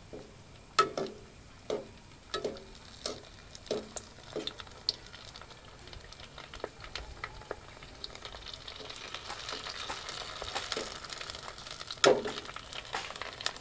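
Raw puris frying in hot coconut oil in a pan: a string of light knocks and taps at first, then a hissing sizzle that builds from about six seconds in and holds, with one louder knock near the end.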